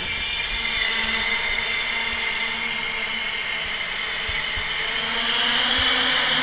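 Trenord double-deck electric train rolling along the platform, with a high steady whine over the running noise that swells near the end. A few low thumps from the wheels come in the second half.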